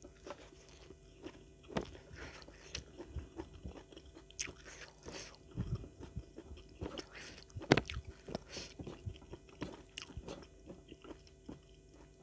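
Close-up eating sounds: a person biting and chewing a mouthful of rice with sambal and raw vegetables, with scattered crunches and wet mouth clicks, the sharpest crunch about eight seconds in.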